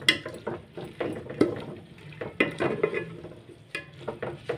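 Spoon stirring a thick curry in a metal pot, mixing in freshly added coriander, with about ten irregular clinks and knocks against the pot's sides over a faint sizzle.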